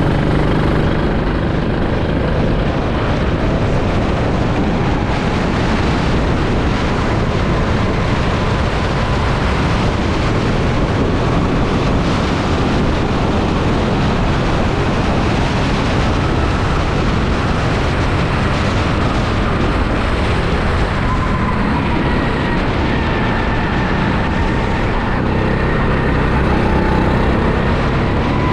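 Rental go-kart engine running on track, heard from an onboard camera, its note rising and falling slowly with speed.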